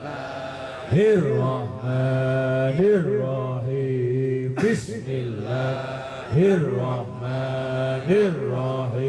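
A man's voice chanting Arabic prayer recitation into a microphone, in long drawn-out held notes with a swoop in pitch at the start of each of several phrases.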